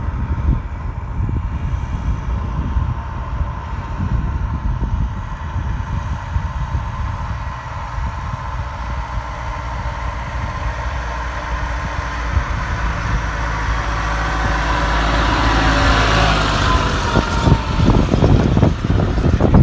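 Tractor engine running steadily as it pulls a seed drill, growing louder as it approaches, with wind buffeting the microphone.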